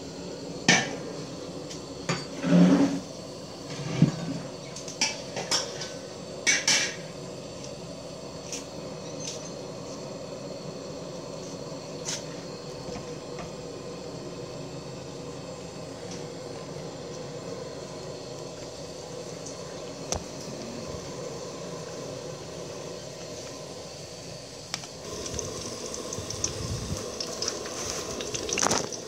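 Metal utensil knocking and clinking against a stainless steel tray of cooked fish, several sharp knocks in the first seven seconds. Near the end, chopped garlic starts sizzling in oil in a steel wok.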